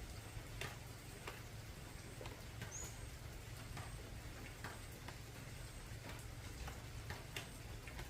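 Rain dripping on an old corrugated tin roof: irregular sharp ticks, several a second, over a steady hiss and low rumble. A brief high chirp sounds about three seconds in.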